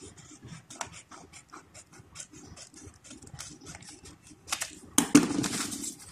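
Scissors snipping through printed paper in a quick run of short cuts, about three or four a second. About five seconds in the sheet rustles loudly for a second as it is handled.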